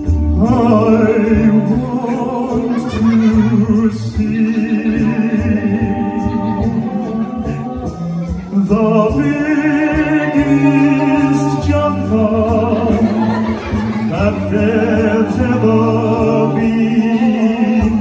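Male a cappella group singing held chords in close harmony over a low sung bass line that steps between notes, through microphones and PA speakers.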